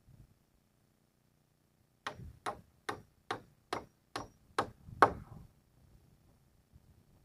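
Hammer driving a nail into sheet-metal roofing: eight sharp blows about two a second, the last one the loudest with a short ring.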